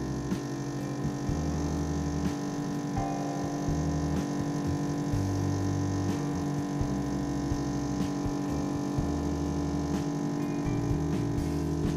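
Espresso machine pump humming steadily while a shot is pulled.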